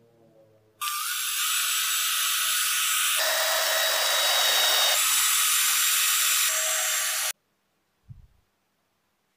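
Cordless drill spinning up with a short rising whine and running steadily for about six and a half seconds as it bores into a small wooden part, its sound shifting abruptly a couple of times before it cuts off suddenly. A short low thump follows near the end.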